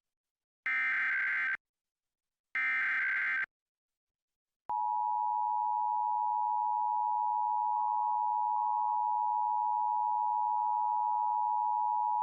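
Emergency Alert System test tones: the last two of three SAME header data bursts, each just under a second of harsh buzzing, then a short gap. About five seconds in, the steady two-tone EAS attention signal (853 and 960 Hz sounded together) begins and holds.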